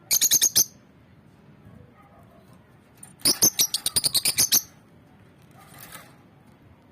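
A bird chirping in rapid runs of sharp, high notes: a short burst at the start, a longer run about three seconds in, and a fainter call near the end.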